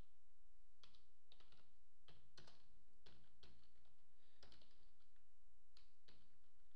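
Typing on a computer keyboard: about a dozen quick keystrokes at an irregular pace, over a faint low hum.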